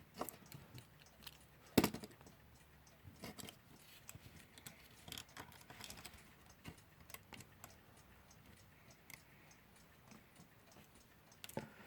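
Faint, irregular small clicks and taps of tools and small metal parts while a part is worked into a Westclox Baby Ben alarm clock movement, with one sharper click about two seconds in.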